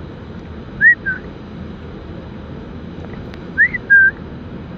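A person whistling a two-note call twice, a quick rising note followed by a short level one, to get a beaver to look up. The first call comes about a second in, the second, louder one near the end.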